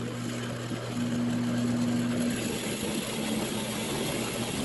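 Drill press running, its motor giving a steady hum while a 5/8-inch Forstner bit bores down into a block of wood, with the rasping of the cut. The sound grows a little louder about a second in as the bit bites into the wood.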